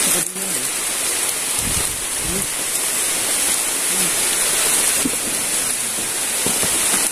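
Steady rain falling, an even hiss with the rush of river water beneath it.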